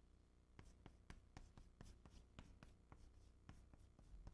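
Chalk on a chalkboard, writing Chinese characters: faint, short taps and scrapes in an uneven run of about three or four a second.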